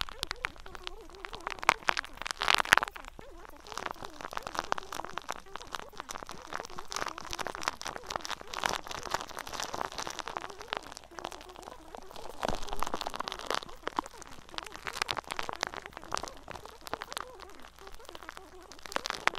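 Dense crackling and pattering made of many small clicks over a steady hiss, like rain on a surface.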